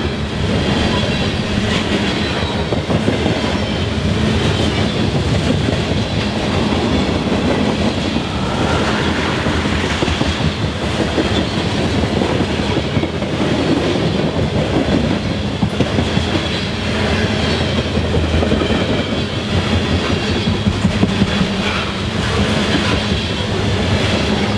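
Freight train rail cars (tank cars and covered hoppers) rolling past close by: a steady rumble with a constant clatter of steel wheels on the rails.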